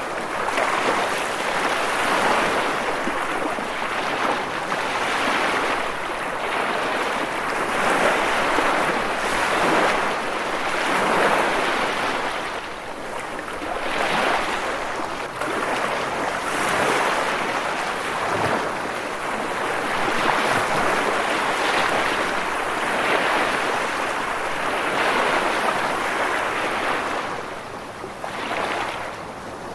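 Sea waves breaking against rocks: a continuous wash of surf that swells and ebbs every two to three seconds.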